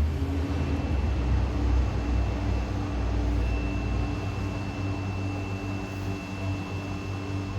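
A steady low machine hum, with a faint high whine joining about three and a half seconds in.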